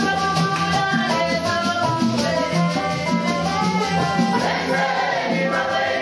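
Church congregation singing a hymn in call-and-response style, with hand rattles shaken to a steady beat and accompanied by hand drums and a banjo.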